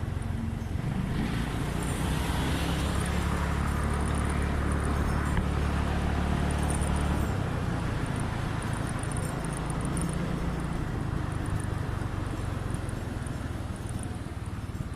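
Scooter engine running hard under way, with road and wind noise. The engine hum is strongest in the first half and drops off about halfway through.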